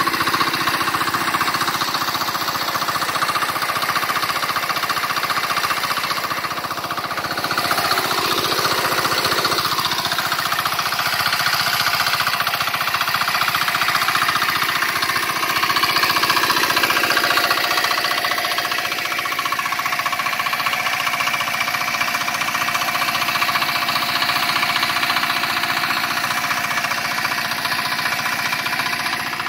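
Single-cylinder air-cooled Z170F diesel engine of a 4 hp portable water pumpset running steadily under load with a rapid clatter, while water gushes from the pump's discharge pipe.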